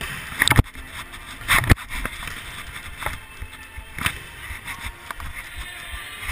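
Dodgeball play heard from a player's body-worn camera: a few sharp thumps, about half a second in, near two seconds and around four seconds, over a steady rustle.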